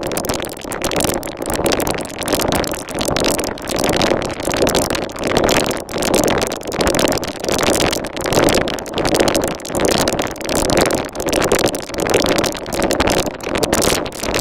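Synthesizer sound: a noisy tone that swells and fades in regular pulses about every three-quarters of a second, strongest in the low middle range.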